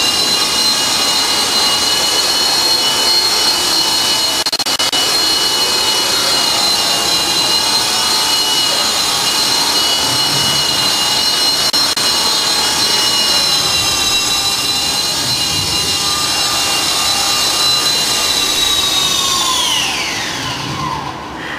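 Small electric RC helicopter hovering, its motor and rotors giving a steady high-pitched whine. Near the end the whine falls sharply in pitch as the rotors spin down on landing.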